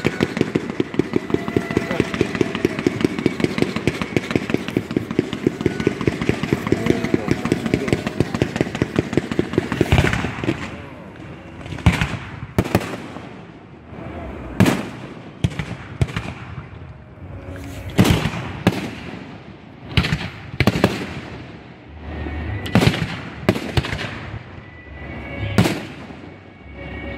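Fireworks display going off directly overhead: for the first ten seconds or so a fast, even crackle of crackling effects, then aerial shells bursting one after another, a sharp bang every second or two with a short echo after each.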